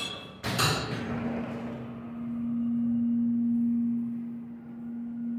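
Elevator doors closing with two knocks, then a hydraulic elevator's pump motor starts and runs with a steady humming tone that swells and eases a little.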